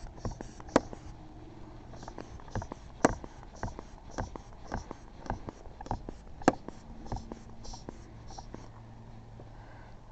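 Irregular light clicks, taps and scraping of a locksmith's tools being worked at a car door gap, with a few sharper knocks over a faint steady hum.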